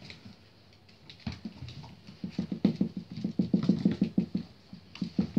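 Cairn terrier puppy's paws pattering across a tile floor: quiet at first, then from about two seconds in a fast run of light footfalls, about eight a second, with a few more steps near the end.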